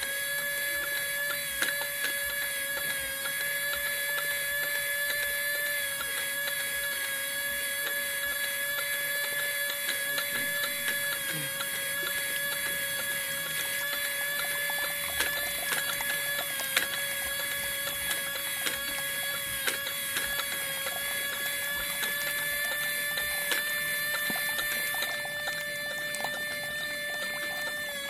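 Miniature DC gear motor, powered by a 9-volt battery, running steadily with a constant whine as it turns a string pulley. A few light clicks sound over the whine.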